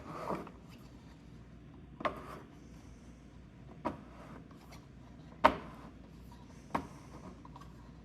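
Sharp, irregular clicks and knocks, about six, the loudest about five and a half seconds in, from the hand-operated tensile test fixture as it pulls on a 3D printed charger release lever.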